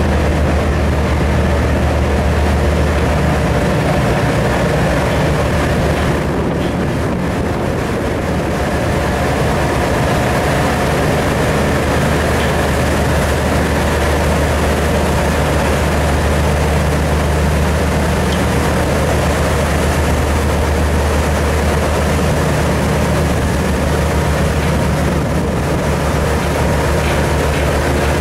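Towboat diesel engines running with a steady low drone as the boat pushes loaded grain barges into a lock chamber.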